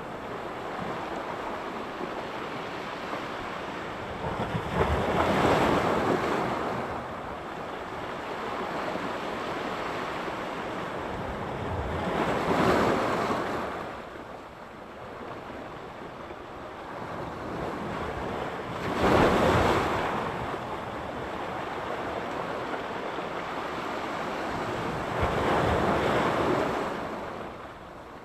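Sea surf: four waves break on the shore about every six to seven seconds, each swelling to a rushing wash and then falling back, over a steady hiss of the sea.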